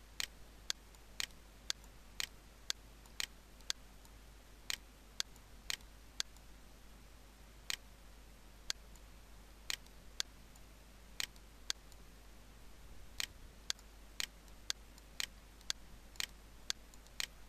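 Computer mouse clicking: single sharp clicks at irregular intervals, at times about two a second, over a faint steady low hum.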